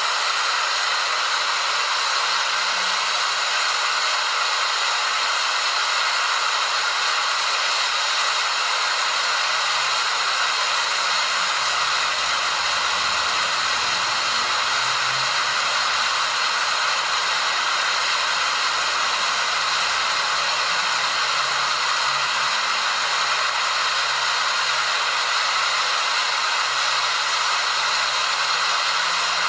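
Waterfall: a steady, even rush of falling water, hissy and bright with little low rumble.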